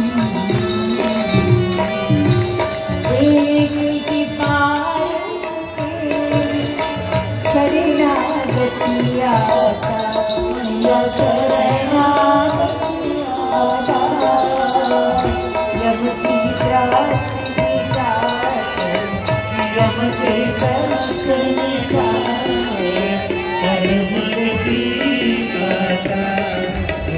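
Devotional aarti music: a tabla-led rhythm with a sung melody of held and sliding notes, continuing without a break.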